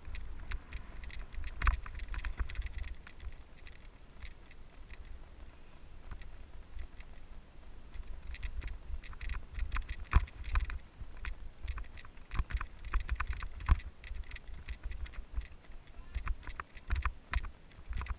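Mountain bike rolling over rough trail, with irregular rattling and knocking from the bike as it takes bumps. A low rumble of wind buffets the camera's microphone.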